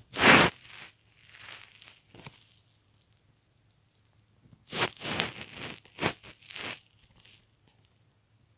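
Bed covers rustling and crumpling in short bursts: a loud one at the start, softer ones over the next two seconds, then a cluster of rustles about five to seven seconds in.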